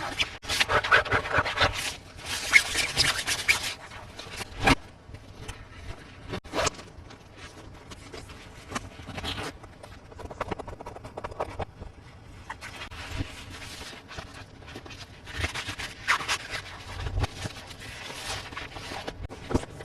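Hands handling toy packaging and figures: bursts of crinkling and scraping with a few sharp clicks, loudest in the first few seconds and again near the end.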